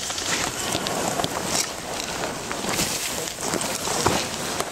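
Rustling and brushing of clothing and forest undergrowth as a player moves, with many small crackles and snaps and one dull knock about four seconds in.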